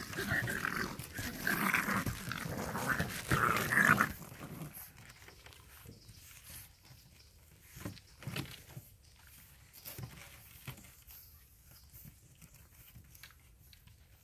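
Shar-pei puppies vocalizing as they wrestle in play, loud for about the first four seconds. After that there are only faint scuffles and light taps.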